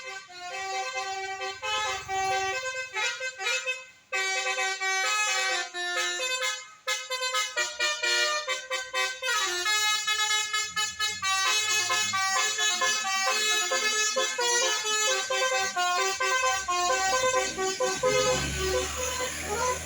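Bus telolet horn playing multi-tone melodic tunes, the notes stepping from pitch to pitch with a couple of short breaks between phrases. A deep engine rumble swells in near the end as the bus passes.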